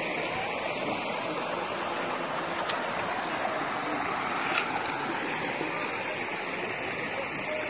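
Shallow stream flowing over rocks: a steady rush of running water, with two brief clicks, one about three seconds in and one about four and a half seconds in.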